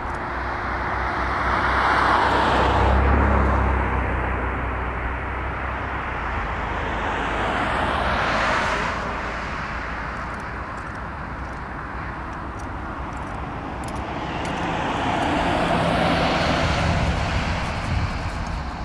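Road vehicles passing on a paved road three times, each one's tyre and engine noise swelling and fading away.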